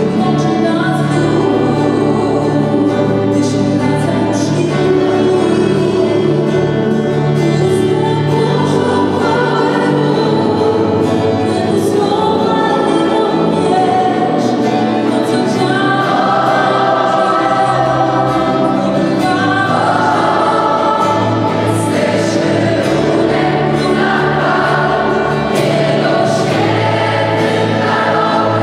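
Large mixed youth choir singing a gospel song with instrumental accompaniment, with steady low notes running beneath the voices.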